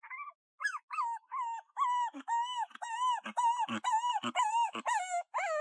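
Puppy whimpering: a rapid string of high, short whines one after another, the last few sliding down in pitch.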